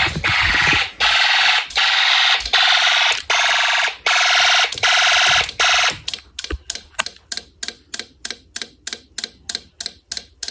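Fire alarm horn sounding its harsh buzz, first in long pulses with brief gaps, then, about six seconds in, switching to rapid short blasts of about four to five a second.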